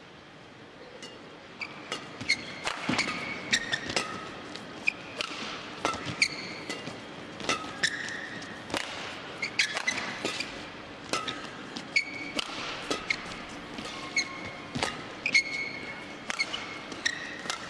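Badminton rally: rackets strike a feather shuttlecock again and again, starting about two seconds in, with short high squeaks from players' shoes on the court between the shots.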